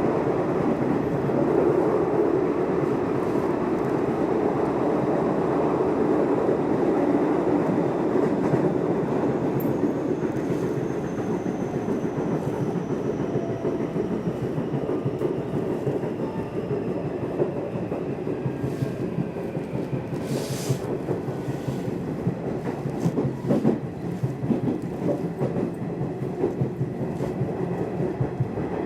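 Nishitetsu electric commuter train running on rails, heard from inside the car: a steady rumble of wheels on track with rail-joint clicks. A faint whine falls in pitch from about ten seconds in as the rumble eases, and there is a short hiss about two-thirds of the way through.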